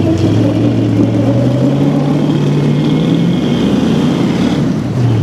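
Off-road competition truck's engine pulling under load, its pitch climbing slowly for about three seconds and then easing off.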